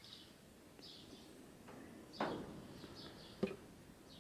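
Quiet pouring of sewing machine oil from a plastic bottle into a metal oil sump. There is a louder gurgle about two seconds in and a sharp click a little after three seconds, with faint bird chirps in the background.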